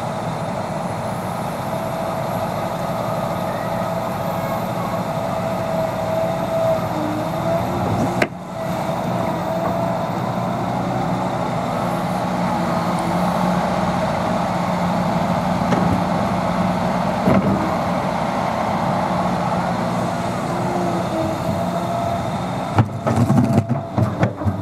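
Liebherr 926 crawler excavator's diesel engine running under load with a steady hydraulic whine whose pitch wavers slightly as the boom and bucket move. Near the end comes a run of sharp knocks and scraping as the bucket digs into the ground.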